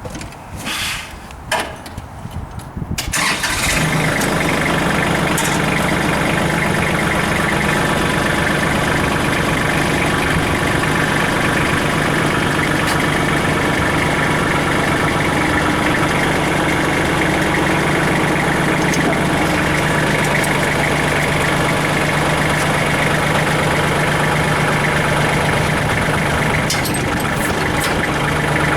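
Kubota L3800 tractor's three-cylinder diesel engine starting about three seconds in after a few short knocks, then running steadily.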